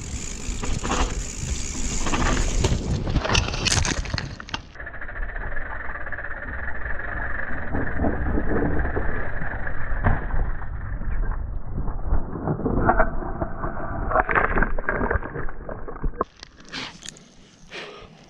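Mountain bike rattling and clattering over a rough dirt trail at speed, with wind rumbling on the camera's microphone; the noise drops off sharply near the end as the bike slows.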